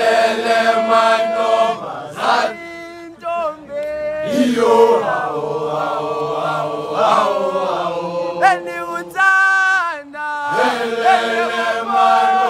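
A group of boys singing a chant-like song a cappella together, in phrases with brief pauses between them.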